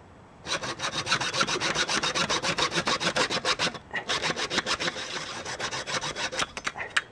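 Hacksaw cutting through a half-inch thin-wall copper pipe at an angle, in quick back-and-forth strokes with a brief pause near the middle.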